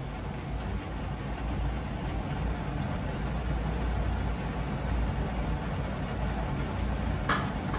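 Gas stove burner flame running with a steady low rumble under a karahi of ghee that is warming up. One short sharp tick near the end.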